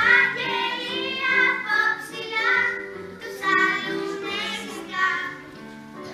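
Group of young children singing a Christmas song together over steady instrumental accompaniment.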